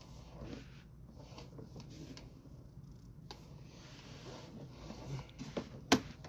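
Faint rubbing and scattered light ticks from a sewer camera's push cable being drawn back, with one sharp click near the end.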